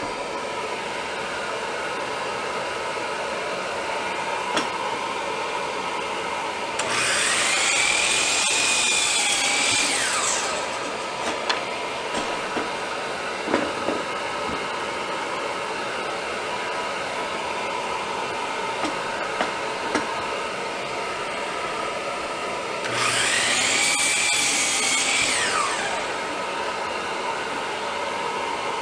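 Hercules 12-inch sliding compound miter saw making two cuts. Each time the motor's whine rises as it spins up, holds through the cut and winds down, about three and a half seconds each. A steady machine hum runs underneath, with a few light knocks of boards being handled between the cuts.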